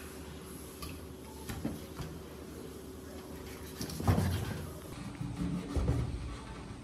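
A few knocks and bumps of things being handled in a kitchen, over a steady low hum; the loudest knock comes about four seconds in, with more bumps near the end.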